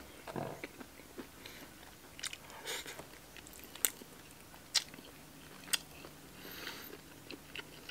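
Quiet close-up eating: a man chewing a mouthful of soft stir-fried black bolete mushroom, with soft mouth smacks and about three sharp clicks of chopsticks against the dishes in the second half.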